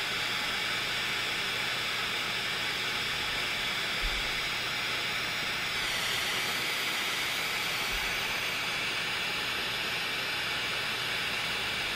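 Small handheld torch flame hissing steadily while it heats a bead of solder on a paperclip tip and a jump ring.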